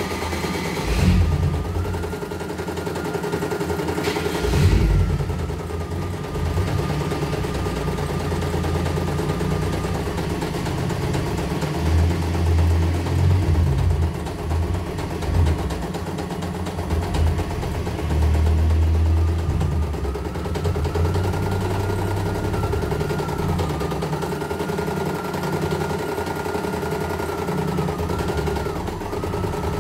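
CNY E900 computerised embroidery machine stitching at speed: a rapid, even rattle of needle strokes under a thin motor whine that steps up and down in pitch several times. There are two heavier knocks in the first five seconds.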